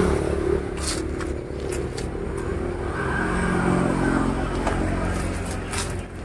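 Steady hum of a motor running, with a few short knocks and scrapes of plastic plant pots being handled and shifted on trays.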